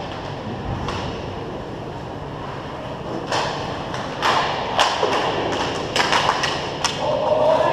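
Hockey sticks and puck clacking in a scramble in front of the goal: a run of sharp knocks starting about three seconds in and coming thick and fast near the end, over the steady hum of a large rink hall.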